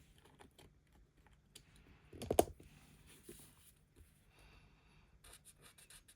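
A cluster of small sharp knocks about two seconds in, then quick short scratchy strokes of a marker colouring on card, several a second, starting about five seconds in.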